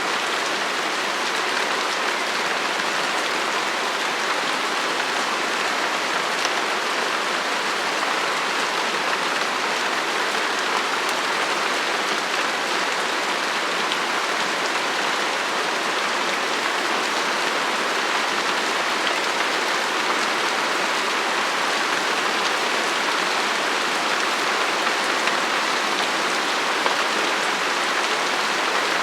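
Light rain falling steadily: an even, unbroken wash of sound with no pauses.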